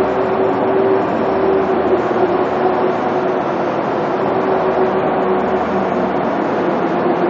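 Steady machine drone: a constant mid-pitched hum over an even rushing noise, with no clear knocks or voices.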